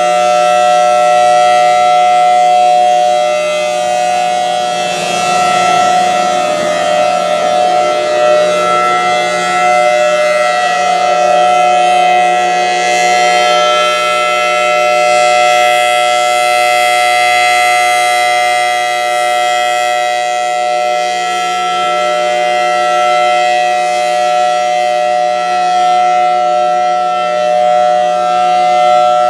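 Federal Signal Thunderbolt 1003 outdoor warning siren sounding the steady Alert signal for its monthly test: a loud, constant-pitch wail that swells and fades slightly in loudness.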